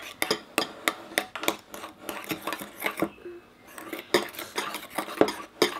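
Metal spoons clinking and scraping irregularly against bowls as fluffy slime is stirred. The mixture is still sticky, and the stirring works it loose from the bowl sides.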